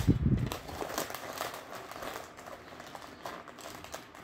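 Glossy magazine pages being crumpled and packed into a basket as filler. It opens with a loud rustle, then goes on as fainter crinkling and crackling as the paper is pressed down.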